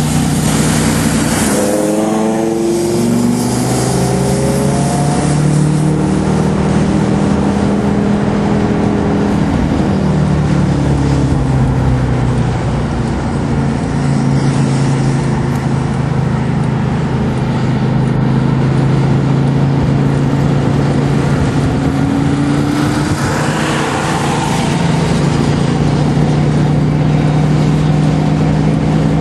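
Car engine heard from inside the cabin, pulling hard at speed. Its pitch climbs in steps through the gears in the first few seconds, dips and picks up again about ten seconds in, and climbs again near the end, over steady road and wind noise.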